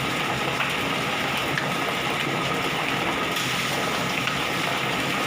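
Poultry feather-plucking machine running steadily: an even rushing noise with a faint steady whine, unchanging throughout.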